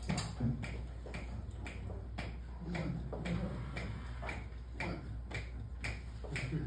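Steady sharp clicks, about three a second, setting the tempo just before the band starts the tune.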